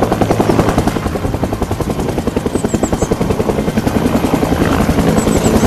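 Bell UH-1 Huey helicopter hovering, its two-blade main rotor beating in a rapid, even pulse.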